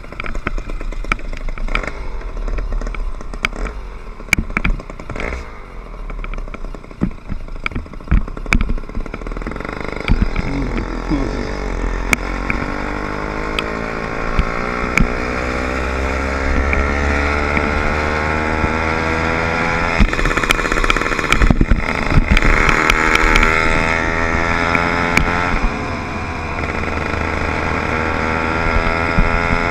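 Motorized bicycle's 60/80cc two-stroke engine running, with knocks and rattles for about the first ten seconds. Then, under way, its pitch climbs steadily as it speeds up, dips briefly twice and climbs again.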